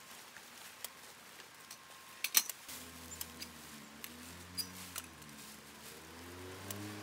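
Scattered light clicks and taps of metal tarp poles being handled and wiped, with one sharper click about two and a half seconds in. About three seconds in, a soft, low melody of background music fades in and carries on.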